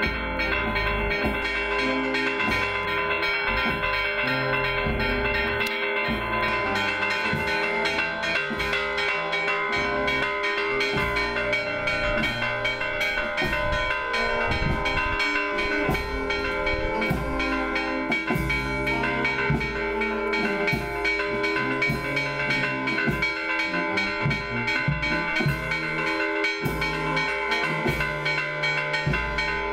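Church bells being rung continuously, the strokes overlapping into a steady, dense ring.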